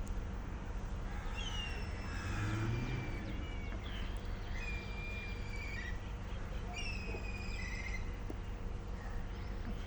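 Birds calling: a few clear whistled calls, the first gliding down in pitch, the others held steady, over a steady low background rumble.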